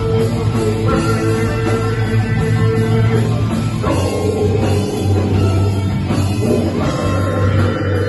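Live rock band playing loud: electric guitars, bass and a drum kit, with a singer at the microphone. A held high note drops out a little before halfway as the music changes.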